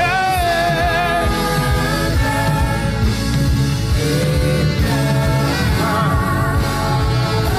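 Gospel worship song: choir singing long, wavering held notes over a band with a steady beat.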